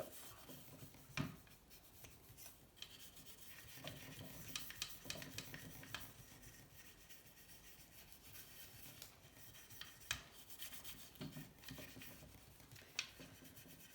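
Faint rubbing and scraping with a few light clicks scattered through it; no power tool is running.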